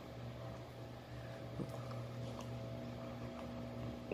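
Faint steady electrical hum of the room, with a few soft clicks.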